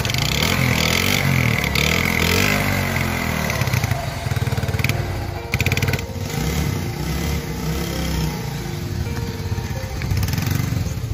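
Small commuter motorcycle engine running, revved up and down a few times, then pulling away as the bike rides off.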